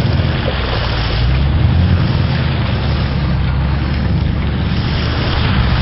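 Chevy K5 Blazer engine running steadily as the truck drives through mud puddles, with water splashing off the tyres and wind buffeting the microphone.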